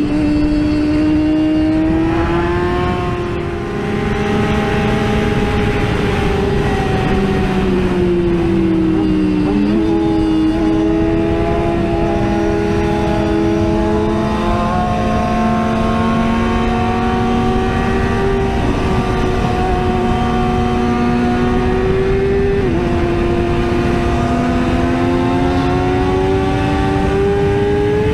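Sport motorcycle engines running hard at highway speed, heard from on board over wind and tyre noise. The pitch climbs slowly, drops suddenly with a gear change about ten seconds in and again about three-quarters of the way through, then climbs again.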